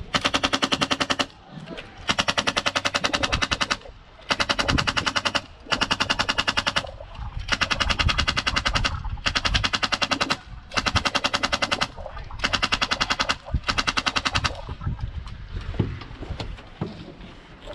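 Airsoft gun firing close by in about nine rapid full-auto bursts of a second or two each, with short pauses between them; the bursts stop a few seconds before the end.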